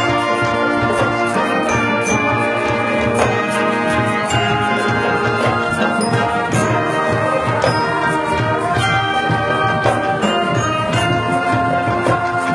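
Marching band playing: brass section with trumpets and trombones carrying sustained chords over percussion.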